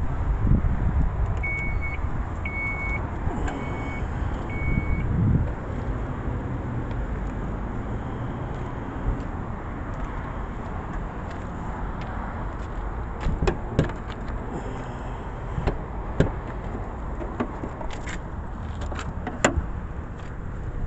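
Chrysler Town & Country minivan's electronic warning chime beeping four short times about a second apart, over a steady low rumble. Later a few sharp clicks and knocks.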